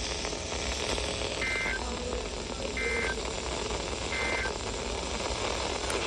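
Emergency Alert System end-of-message signal: three short bursts of two-tone digital data squeal, each about a third of a second, about 1.3 seconds apart. They play over steady radio static, from a weak, staticky reception of the Required Weekly Test.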